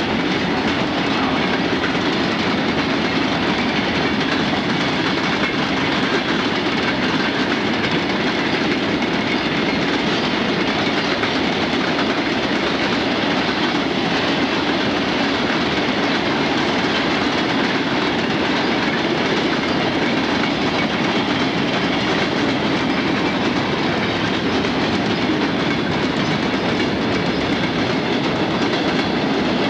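A long mixed freight train rolling steadily past at speed: the continuous rumble and rattle of its hopper, tank and lumber cars' wheels on the rails.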